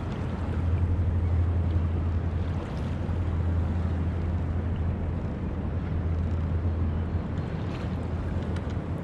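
Wind buffeting the microphone and choppy saltwater washing against a plastic fishing kayak's hull, over a steady low hum.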